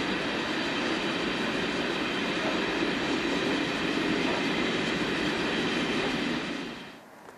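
Loaded-looking LKAB iron ore train's ore wagons rolling past on the rails: a steady running noise with a faint high whine of several tones over it. It drops away sharply near the end.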